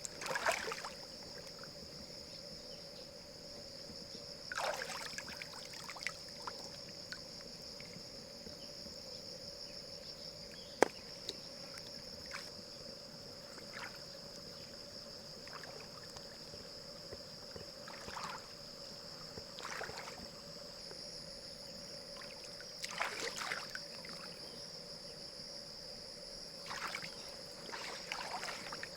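Water splashing and sloshing in short bursts every few seconds, over a steady high-pitched whine, with one sharp click about eleven seconds in.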